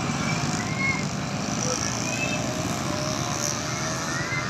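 Roadside traffic: a steady rumble of passing vehicle engines and tyres, with a faint tone slowly rising in pitch and a few short faint chirps over it.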